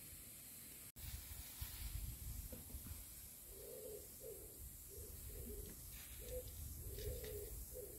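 A dove cooing softly in a run of short, repeated coos that start a few seconds in, over a low rumble.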